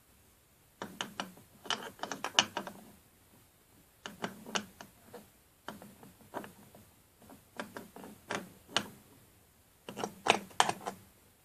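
Irregular clusters of metal clicks and clacks as steel parts of a small engine are handled and set in place by hand.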